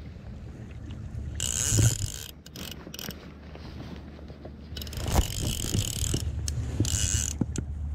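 Fly reel's click-and-pawl drag buzzing in three bursts, the longest about five seconds in, as line runs with a hooked fish on.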